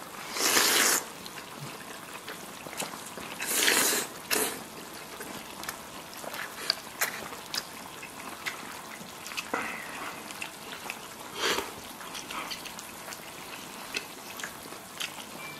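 A person eating spicy hot pot: loud slurps of meat and tripe with broth from chopsticks, just after the start, about four seconds in and near twelve seconds, with wet chewing and mouth clicks between.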